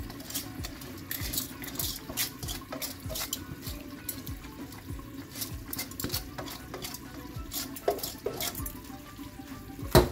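Soaked basmati rice scraped out of a metal bowl with a spatula and tipped into a pot of boiling water: many small scrapes and clicks, with one sharp knock near the end.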